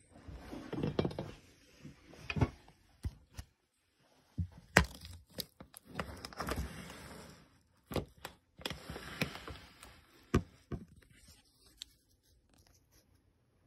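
Handling noise in a reptile terrarium, with rustling and scattered sharp clicks and knocks as a hand moves in among the wooden decor. It is irregular, dying down to a few faint ticks near the end.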